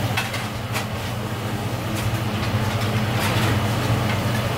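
A steady low machine hum, with a few faint light clicks over it.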